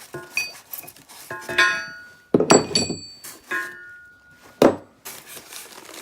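Metal engine-stand parts clinking and clanking as they are handled and set down: about six separate knocks, several with a short metallic ring, the loudest about two and a half seconds in.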